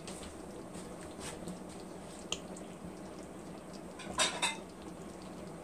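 Thick tomato and ground-beef sauce simmering in a large pan, with scattered soft pops and a brief clinking cluster about four seconds in.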